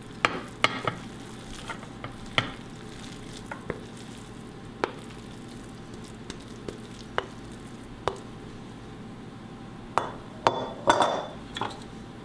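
Wooden spoon scraping and scooping moist stuffing out of a glass mixing bowl into a glass baking dish, with scattered sharp knocks of the spoon against the glass. Near the end, a quicker run of knocks and scraping.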